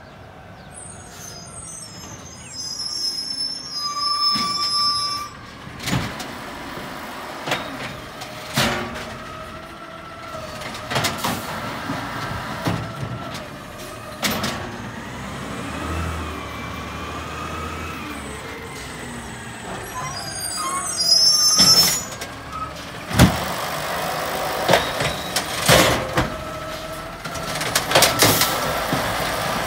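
Automated side-loader garbage truck's diesel engine running as it pulls up and stops, with several short sharp air-brake hisses and a wavering whine. The engine rises in level about two-thirds of the way through, and near the end the hydraulic arm is working at the bins.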